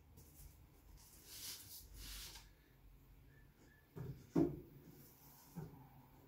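Rolled paper decal sheets rustling as they are worked out of an opened cardboard postal tube, followed by three soft knocks of the tube being handled, the loudest about halfway through.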